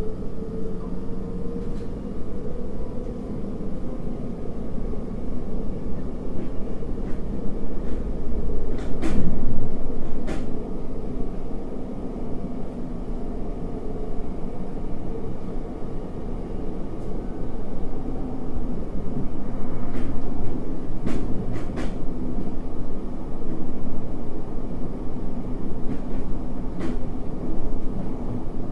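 Running sound inside a JR 733 series electric train car: a steady low rumble of wheels on rail and a faint motor whine that rises slightly near the start. Sharp wheel clacks over rail joints come in small clusters, twice near the middle and once near the end.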